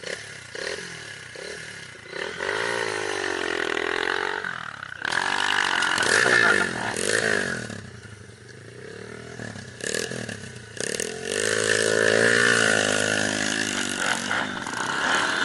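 Small off-road motorcycle engines revving up and down again and again, with rattling, scraping noises now and then.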